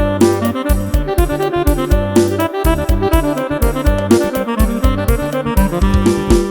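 Electronic keyboard playing fast Isan lam phloen music, a busy melody over a steady pounding drum and bass beat.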